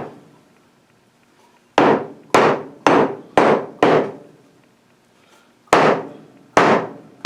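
Sharp knocks as a rebuilt Mopar brake master cylinder is struck to free a piston assembly that is stuck in its bore. There is a quick run of five knocks about half a second apart, then a pause, then two more.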